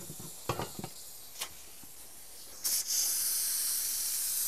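A few short knocks and clicks, then about two and a half seconds in steam starts hissing steadily and loudly out of an Afghan pressure kazan's lid valve as its pressure is released.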